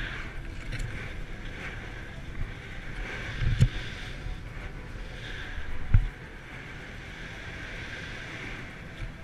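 Wind rushing over the microphone of a paraglider in flight, with two heavy low thumps about three and a half and six seconds in.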